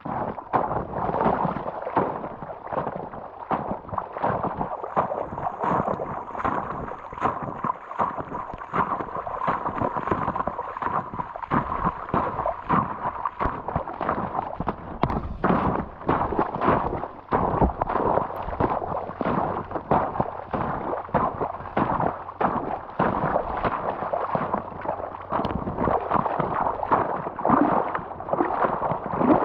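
Rubber boots wading through shallow water and thin, broken-up spring ice, splashing and crunching through ice plates and slush with every step, a dense, irregular run of splashes.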